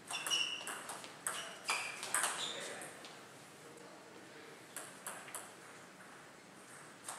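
Table tennis rally: a quick run of sharp, ringing clicks as the ball is struck by the paddles and bounces on the table, about a dozen in the first two and a half seconds. A few lighter ball ticks follow around five seconds in.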